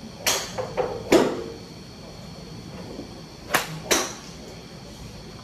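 Sharp cracks of iron clubheads striking golf balls off mats, four in two pairs: one about a quarter second in and one about a second in, the loudest, then two more about three and a half and four seconds in. The later pair includes a 7-iron full-swing strike.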